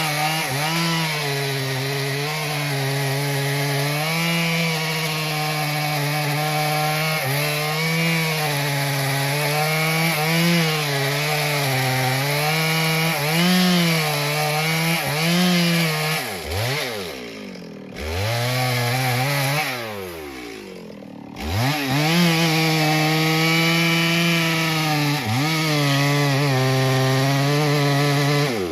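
Chainsaw cutting into a tree trunk, its engine held high and wavering under the load of the cut. About two-thirds of the way through the throttle is let off twice, the pitch sliding down, then it revs back up and keeps cutting until the engine drops off at the very end.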